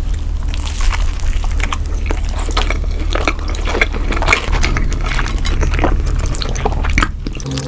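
Wet eating sounds: irregular small clicks and smacks close to the microphone, over a steady low hum.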